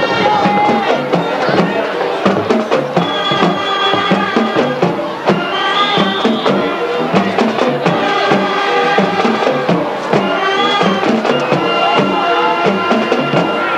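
Music with held, pitched notes over a steady drum beat.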